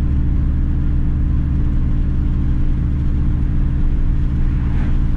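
Steady low drone of a 1997 Ford F-150 cruising at road speed, heard from inside the cab: engine and true-dual cat-back exhaust with road and tyre noise.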